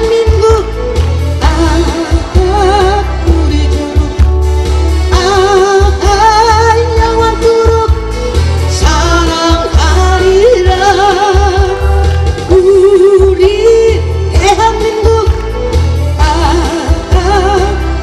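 A woman singing a song with strong vibrato into a microphone, over an amplified backing track with a steady bass beat.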